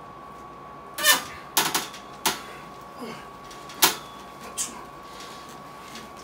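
Forceful exhalations and short grunts from a man straining through weighted pull-ups, about five in all, the loudest about a second in and near four seconds. They are mixed with a few clicks from the gear.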